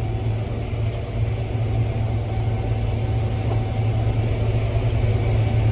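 Combine harvester running steadily while harvesting corn, heard from inside the cab: a constant low drone that does not change.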